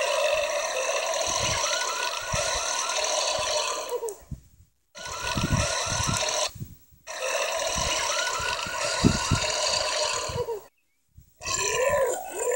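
A person letting out a series of long, drawn-out burps, each lasting a few seconds with short breaks between them; another starts near the end.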